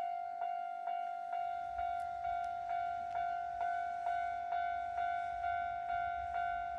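Japanese railroad crossing warning bell ringing steadily, about two strikes a second, each ring dying away before the next. About a second and a half in, the low rumble of an approaching train comes in under it.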